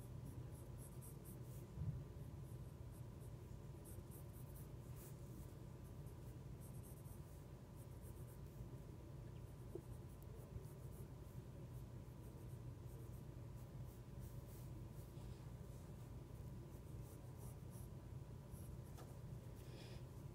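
Pencil scratching on paper in short, faint strokes while drawing, with a soft thump about two seconds in, over a steady low room hum.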